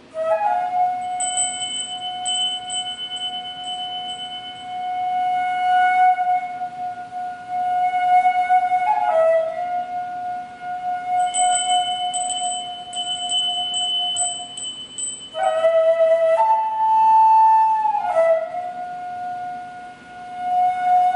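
Daegeum, the Korean large bamboo transverse flute, playing slow, long held notes that swell and fade, sliding and bending into each note, with one higher note about three quarters of the way through.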